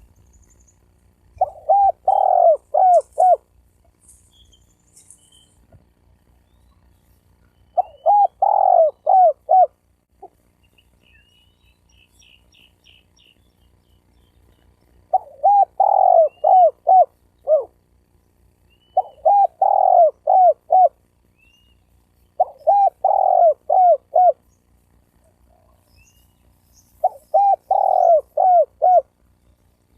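Spotted dove cooing: six phrases a few seconds apart, each a longer coo followed by three or four short coos.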